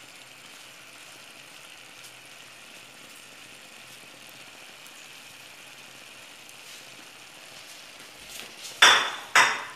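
Low, steady sizzle of spinach and potato cubes frying in a pan. Near the end come two loud strokes of a wooden spoon stirring in the pan.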